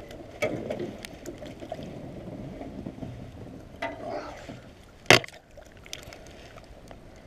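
Handling noise of a fishing rod and reel as a pickerel is reeled in and swung up out of the water: scattered clicks and rubbing, with one sharp knock about five seconds in.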